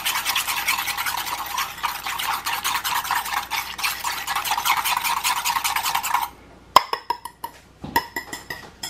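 Wire whisk beating thick drained yogurt and chestnut paste in a ceramic bowl, with fast, even scraping strokes that stop suddenly about six seconds in. A few light knocks and clinks follow.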